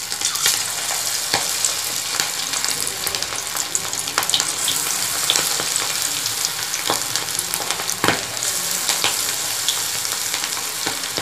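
Batter-coated prawns deep-frying in hot oil in a kadai: a steady sizzle with scattered sharp crackles and pops, one louder pop about eight seconds in.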